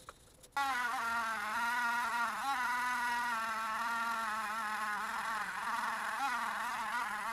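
Handheld rotary tool with a small wire brush wheel starting suddenly about half a second in and running at high speed against cast iron, a steady high whine whose pitch wavers slightly as the brush is pressed on, scouring rust from an antique flat iron.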